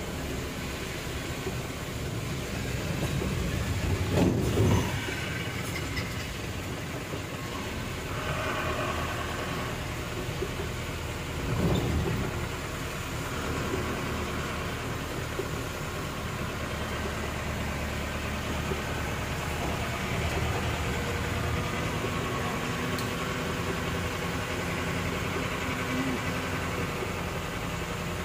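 Steady engine and tyre noise of a vehicle driving on a wet highway, heard from inside the cabin, with two louder swells about four and twelve seconds in.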